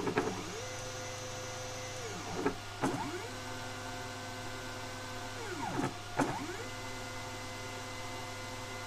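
Stepper motors of a hobby CNC machine whining as they are jogged. Each move ramps up in pitch, holds a steady tone, then glides down to a stop, with a short knock at each stop and start, about every three seconds, over a steady low hum. The motion runs smoothly without skipped steps, now that the step signal comes with a cleaner waveform from a faster computer.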